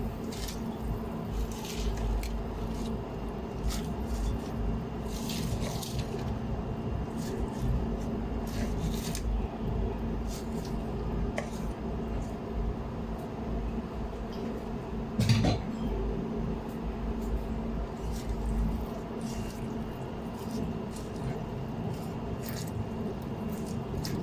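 Pot and utensil sounds at an induction hob: scattered clinks, knocks and soft squishes as bok choy leaves go into a pot of simmering broth and are stirred with a spoon, over a steady low hum. One louder knock comes about fifteen seconds in.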